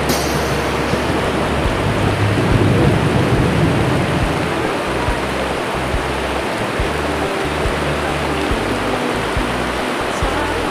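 Heavy rain pouring onto a pond's surface, a dense, steady hiss, with an uneven low rumble underneath.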